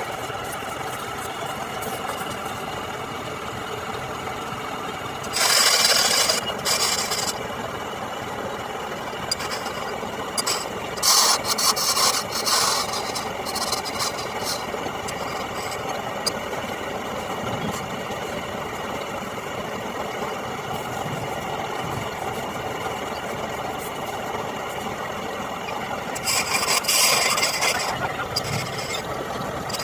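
Wooden turning lathe running with a steady motor hum, while a hand chisel cuts into the spinning wood in loud rasping stretches: about five seconds in, again from about eleven to fourteen seconds, and near the end.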